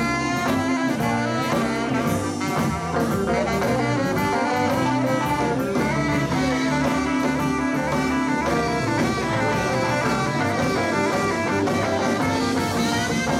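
A live band playing an instrumental passage with electric guitars, bass, drums and keyboard, a saxophone among them.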